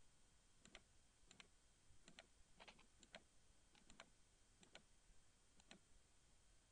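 Near silence: room tone with about a dozen faint, short clicks scattered through it, several in close pairs.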